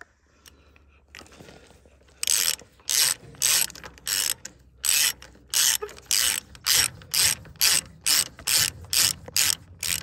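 Hand ratchet clicking in short strokes, about two a second, as it turns a fitting on a mower-conditioner's cutter bar. The clicking starts about two seconds in.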